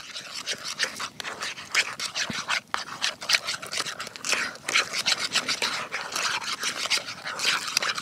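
A spoon stirring thick pumpkin pie filling in a metal bowl: quick, repeated scraping and sloshing strokes against the bowl.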